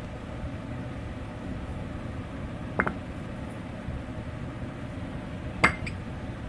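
Two white ceramic bowls set down one after the other on a tabletop, each with a short clink. The second, about three seconds after the first, is the louder, over a steady background hum.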